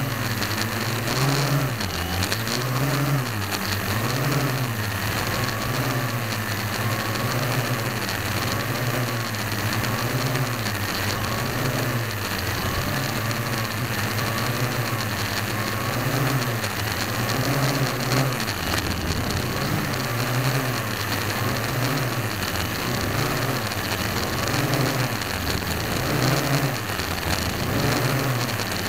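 Parrot AR.Drone quadcopter's electric motors and propellers whirring close to the microphone in flight. The pitch wavers up and down every second or two as the motor speeds change, over a steady hiss.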